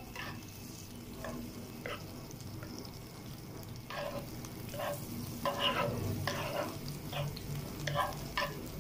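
Butter sizzling as it melts in a hot frying pan, with a spatula scraping and pushing it around the pan. The scrapes grow louder and more frequent about halfway through, over a steady low hum.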